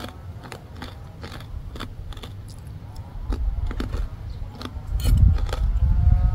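Close-up crunching as crispy pork cracklings are chewed: a run of short, sharp crunches. From about three seconds in, a low rumble builds and becomes the loudest sound near the end.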